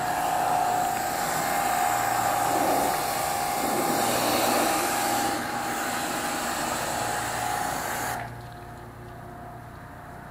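Electric pressure washer running, a steady motor whine under the hiss of the water jet spraying the jet ski's hull. The spray cuts off about eight seconds in, leaving only a faint hum.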